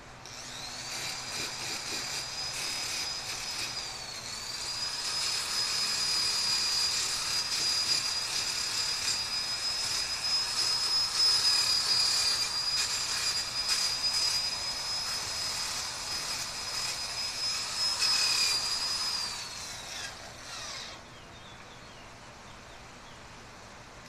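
Electric angle grinder spinning up with a rising whine, then grinding metal, the whine dipping briefly about four seconds in as the disc bites. After about twenty seconds it is switched off and winds down with a falling whine.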